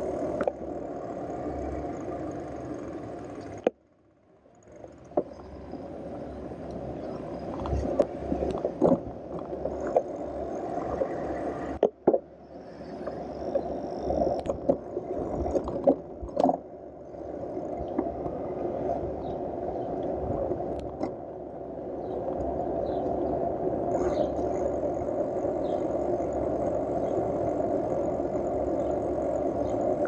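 Bicycle riding along a city street, heard through a camera mounted on the bike: a steady rush of wind and tyre noise, with sharp rattles and clatters as the bike goes over bumps, most of them between about eight and seventeen seconds in. The noise cuts out briefly about four seconds in and dips again near twelve seconds.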